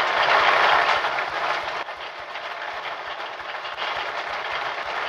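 Lottery balls tumbling and rattling in the drums of a draw machine, a dense clatter that is louder for about the first second and a half and then quieter.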